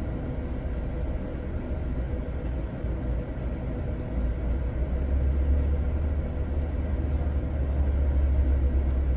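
Low, steady engine rumble of a bus in slow street traffic, heard from inside the bus near the front, growing louder about four seconds in.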